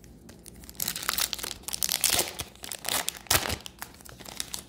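Crinkly wrapper of a hockey card pack being handled and torn open, with irregular crackling and rustling for a few seconds.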